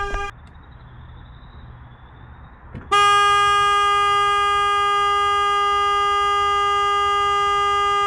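Chevy 3500 tow truck's horn blasting as its custom-built alarm is triggered: one steady note that cuts off just after the start, then comes back loud about three seconds in and holds.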